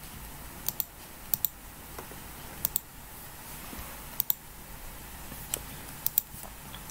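Computer mouse clicked in quick pairs, about six spread unevenly, each a short sharp click over a faint steady background.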